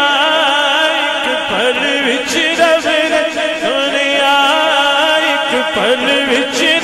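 A man singing a Punjabi naat, a devotional song in praise of the Prophet, in a wavering, ornamented melody through a microphone and PA, with other voices holding a steady note beneath him.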